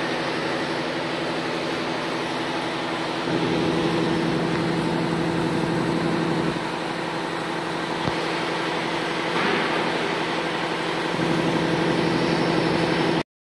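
CO2 laser engraving machine running with a steady mechanical hum over a low tone, swelling louder a couple of times, then cutting off suddenly near the end.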